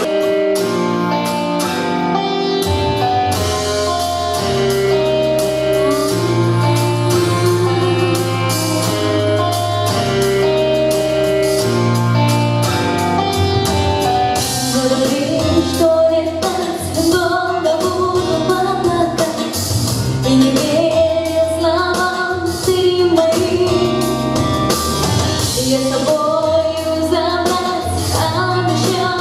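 A song at a stage concert: held instrumental chords over a steady bass line, and about halfway through a singer comes in with a melody sung with vibrato over the accompaniment.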